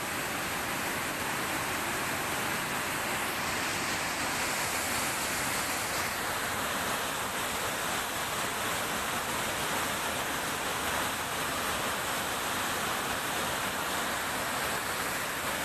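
Flash-flood water rushing down a street in a churning torrent: a steady, unbroken noise of fast-moving water.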